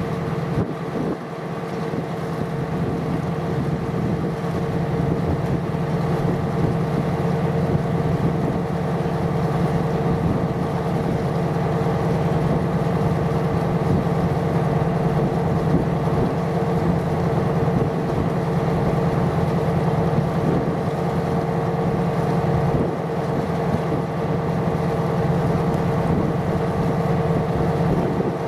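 Ship's engine running steadily, a low drone with a fixed hum on top.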